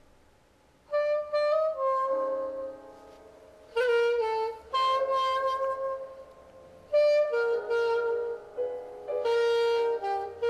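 Instrumental music: a single melody line of held notes in short phrases with brief pauses between them, starting about a second in.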